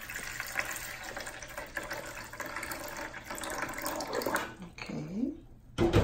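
White vinegar pouring in a steady stream from a plastic jug into a washing machine's plastic detergent dispenser drawer, a splashing trickle that stops about four and a half seconds in. A single sharp thump follows near the end.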